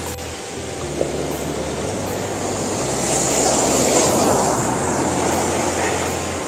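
Sea surf breaking on a sandy beach: a steady rushing that swells into a loud wave wash about three seconds in and slowly eases off.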